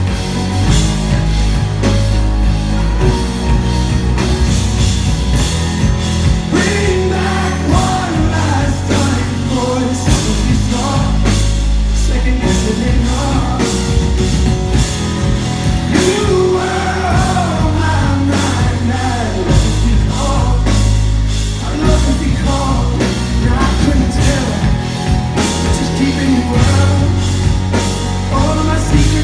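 Live band playing a pop-rock song, loud and steady, with drums keeping a regular beat under a heavy bass line. Singing rises and falls over the band through most of it.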